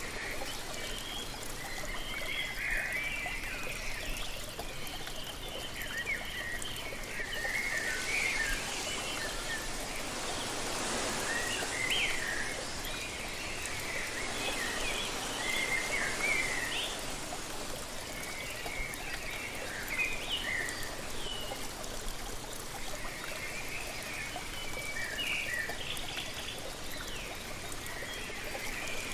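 Waterfall rushing steadily while birds chirp and call repeatedly throughout. The rush swells and brightens for about ten seconds in the middle.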